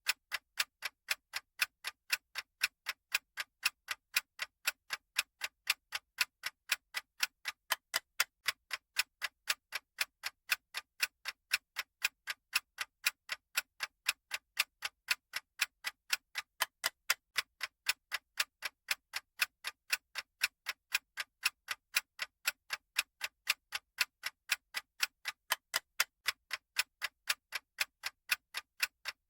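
Clock ticking sound effect of a countdown timer: steady, evenly spaced sharp ticks, about two a second.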